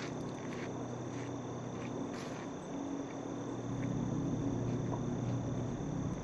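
Steady outdoor ambience of insects chirring, with a low steady hum underneath that grows a little louder about two thirds of the way in. No gunshot.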